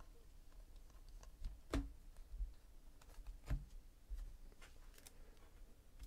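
Trading cards being handled and set down on a tabletop: faint scattered clicks and taps, with two louder knocks about two and three and a half seconds in.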